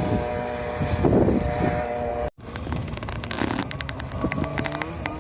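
Engines running steadily, cut off abruptly by a break about two seconds in, then a run of sharp clicks and faint voices.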